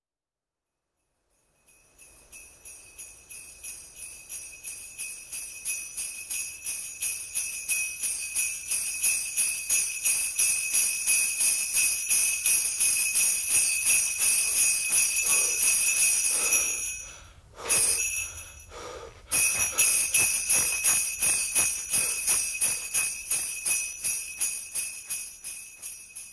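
Sleigh bells shaken in a steady rhythm, about three shakes a second. They fade in, break off briefly about two-thirds of the way through, then slowly fade out.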